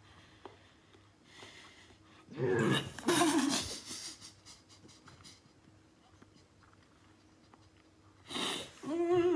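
A woman gagging on a mouthful of oyster: two loud, throaty heaves close together a little over two seconds in, a long quiet stretch, then another heave near the end.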